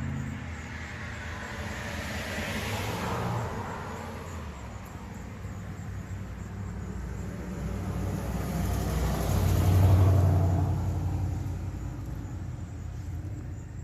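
Road traffic: two cars passing, one rising and fading about two to three seconds in and a louder one peaking about ten seconds in.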